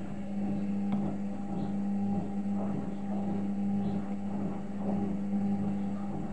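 Arçelik 3320 front-loading washing machine running its wash cycle: a steady motor hum with the drum tumbling the wet laundry.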